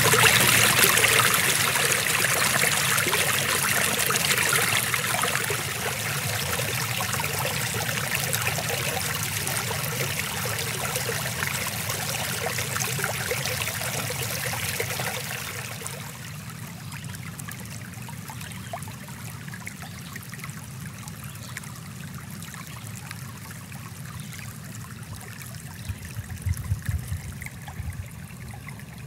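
Stream water running over rocks, growing gradually quieter, with a drop in level a little past halfway as the flow eases to a trickle. A few low bumps near the end.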